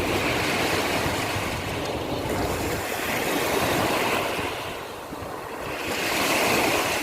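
Sea surf washing ashore, a steady rush of noise that eases off about five seconds in and then swells again.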